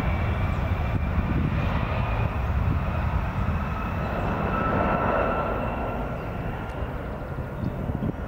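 Twin rear-mounted turbofan engines of a regional jet at high power on its takeoff roll: a steady jet rumble with a faint whine above it, easing slightly near the end as the aircraft moves away.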